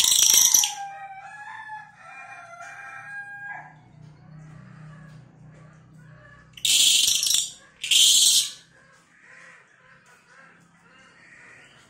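Cililin (small minivet) songbird giving short, loud, harsh high-pitched bursts of its 'nembak' song: one at the start and two more about 7 and 8 seconds in. A rooster crows once between them, about a second in.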